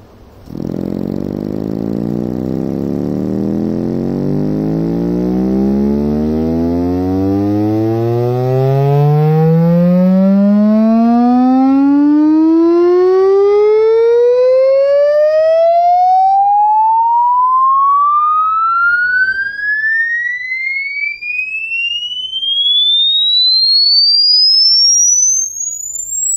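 Sweton 4-inch 20 W woofer playing a sine-wave frequency sweep test tone. One steady tone glides slowly upward from a low hum to a high whistle, with many overtones while it is low that fade away as it climbs.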